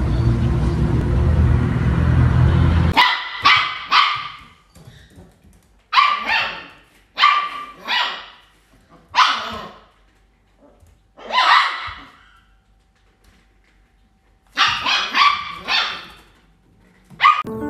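Steady low rumbling noise for about three seconds, then a dog barking in short runs of two to four barks, separated by pauses, about a dozen barks in all.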